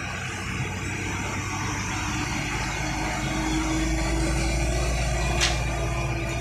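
Heavy truck's diesel engine passing close by, its deep rumble building as it nears and goes past, with a steady engine whine over it. A brief sharp hiss cuts in about five seconds in.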